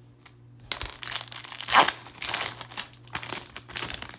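Clear plastic trading-card pack wrapper crinkling as it is handled, in a run of rustles that is loudest a little under two seconds in.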